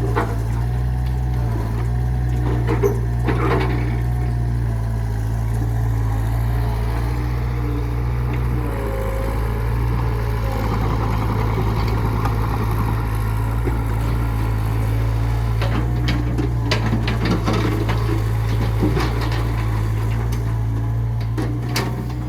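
A heavy construction machine's engine running steadily, its pitch shifting a couple of times, with scattered metal clanks and knocks, a cluster of them about two-thirds of the way through.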